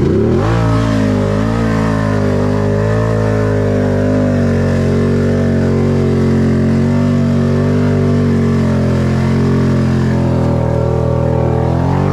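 Can-Am 1000 ATV's V-twin engine revving up hard at the start and held at high revs, its pitch wavering slightly, as the quad powers through deep water.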